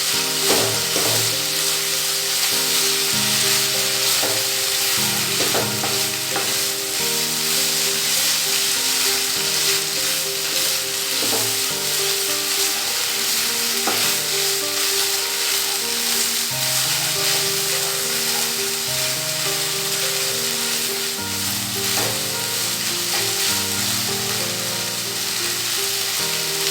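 A fish and onion mixture sizzling in hot oil in a kadai while it is stirred, with a few sharp scrapes or knocks of the spatula against the pan. Soft background music with held notes plays underneath.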